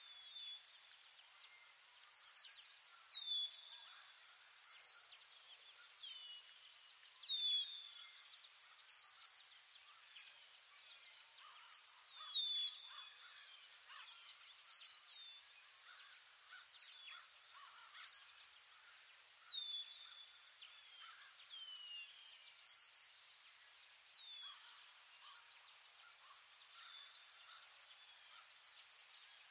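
Recorded forest ambience: a steady, rapidly pulsing high insect trill, with a bird giving short falling whistles every second or two.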